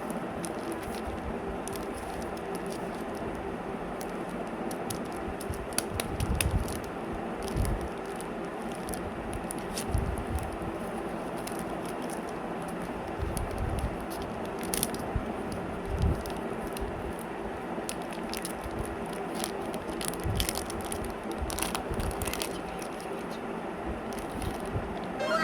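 Plastic chocolate-bar wrappers being handled and opened: scattered crackles, crinkles and scrapes over a steady low hum.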